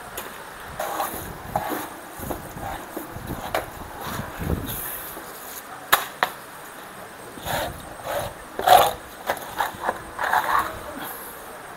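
Irregular knocks and clatter of hard objects, a few sharp ones standing out about six seconds in and again near the end.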